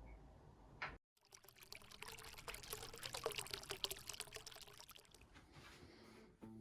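Water pouring with a splashing trickle for a few seconds, starting just after a brief gap and tapering off near the end.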